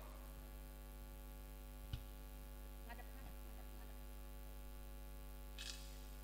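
Steady electrical mains hum from the microphone and sound system, with a single sharp click about two seconds in and a brief hiss near the end.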